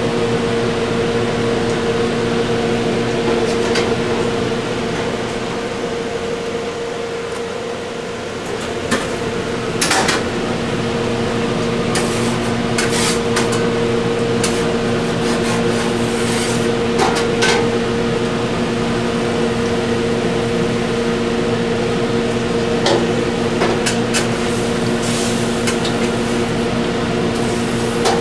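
Steady machine hum of the food truck kitchen's equipment, with scattered clinks and knocks of utensils and pans as the cook works at the range and griddle.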